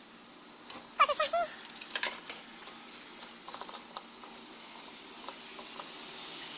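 Scattered plastic clicks of a claw machine's joystick and buttons during play, with one short warbling squeak about a second in, the loudest sound.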